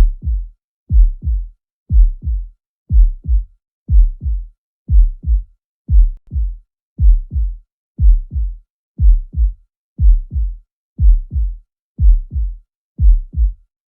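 Human heart sounds as heard on cardiac auscultation: a low-pitched lub-dub pair about once a second, the first sound louder than the second, with quiet between beats.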